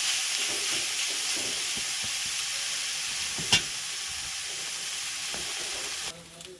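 Minced chicken frying in hot oil in a pan, a steady sizzle with one sharp click about halfway through. The sizzle drops away suddenly near the end.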